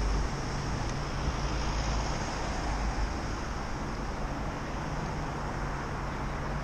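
Road traffic at a city junction: a van and cars driving past, with steady engine and tyre noise and a low rumble that is strongest at the very start.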